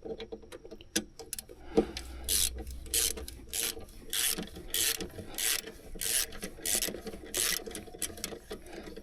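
Ratchet turning a Torx T30 bit to undo the fuel filter's retaining bolt: scattered clicks at first, then repeated rasping pawl strokes about twice a second from about two seconds in.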